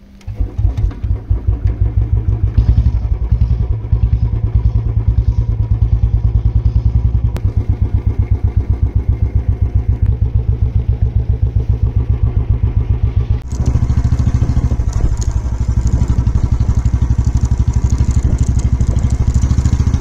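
Royal Enfield single-cylinder motorcycle engine starting at the turn of the key, then running with a steady, even thumping. About thirteen seconds in, the sound abruptly grows louder and brighter.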